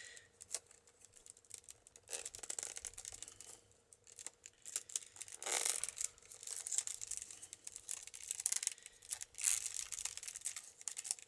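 Bird-cherry rods scraping and rustling as they are woven through a basket's wooden uprights, with scattered clicks and several louder scratchy bursts.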